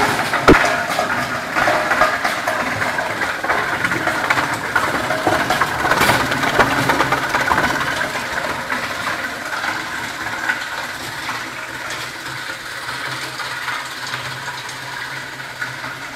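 Plastic lumps grinder crushing a load of hard plastic lumps fed into its hopper: dense crunching and cracking over the running machine. It is loudest at first and dies down gradually as the load is ground, leaving the machine's steady hum.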